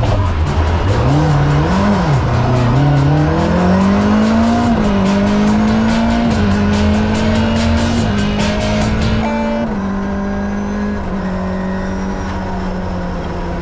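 Rally car's Fiat two-litre twin-cam eight-valve engine heard from inside the cockpit, accelerating hard: its pitch climbs and drops back at each gear change. About nine seconds in the sound thins and holds a steadier note.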